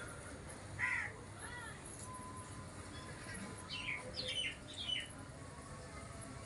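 Bird calls over a steady low background hiss: a short, harsh call about a second in, then a quick run of high chirps about four seconds in.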